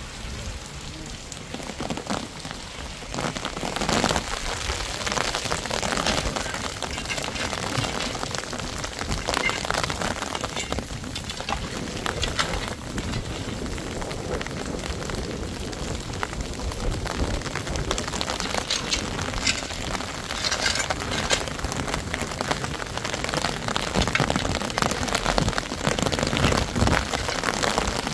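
Steady rain falling on wet ground, with scattered knocks and clatters as pieces of wood and rubble are picked up and moved.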